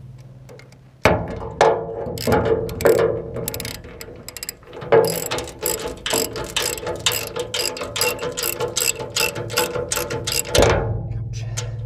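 Socket ratchet wrench tightening the nut on a concrete anchor bolt in the floor of a steel safe: runs of quick clicks from the pawl as the handle swings back and forth, with a few louder knocks, starting about a second in and stopping shortly before the end.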